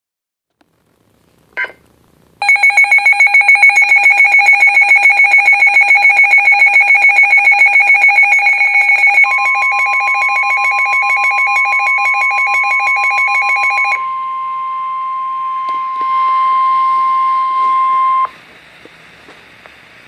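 NOAA weather radio receivers going into alert: a receiver's built-in alarm beeps in a fast, loud pulsing pattern for about twelve seconds. About nine seconds in, the steady 1050 Hz NOAA warning alarm tone comes in and holds until near the end, signalling a warning about to be broadcast.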